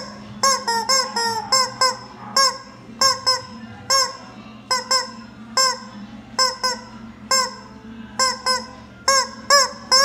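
Rubber chicken squeaky toy squeezed over and over, letting out short, quick squawks about three a second at an uneven pace.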